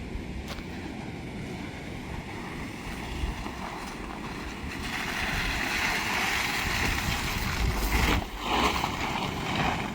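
Tank 500 SUV driving over soft, wet ground: steady engine and tyre noise with wind on the microphone, growing louder about halfway through.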